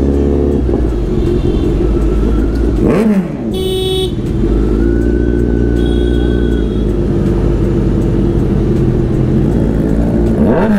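Kawasaki Z900 inline-four with an aftermarket exhaust running at low speed in second gear, blipped up and down about three seconds in and again near the end. A short horn honk sounds about four seconds in.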